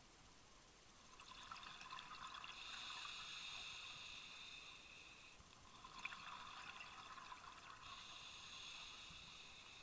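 Scuba diver breathing through a regulator underwater, heard twice in a slow cycle: a crackly burst of exhaled bubbles, then a longer steady hiss of the next breath drawn through the regulator.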